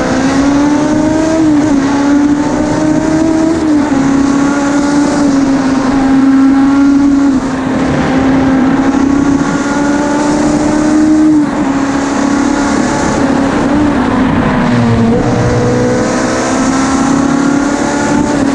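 BMW four-cylinder Formula 2 racing engine of a Martini Mk 50 at high revs under load, its note dropping at gear changes and throttle lifts and climbing again, with a long rising pull near the end. Wind rushes over the open cockpit.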